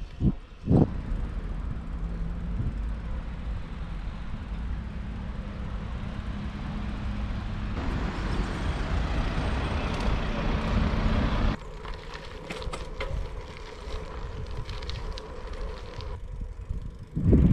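Wind buffeting a GoPro's microphone together with tyre and road noise from a road bicycle being ridden, with two short thumps in the first second. The noise drops suddenly about two-thirds of the way through and grows louder again near the end.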